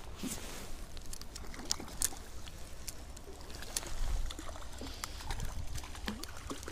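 A hooked trout splashing at the water's surface as it is reeled in on a light rod, with scattered clicks.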